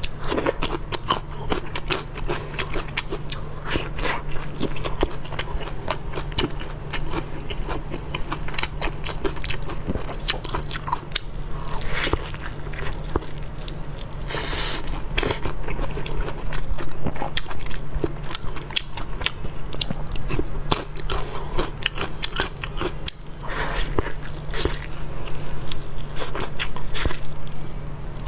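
Close-miked eating: wet chewing and crunchy bites of lettuce leaf, with the sucking and tearing of meat pulled through the lips, making many quick clicks and smacks and a short slurp about halfway through.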